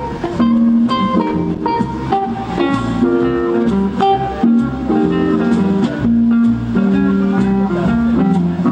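Guitar music with plucked notes and chords.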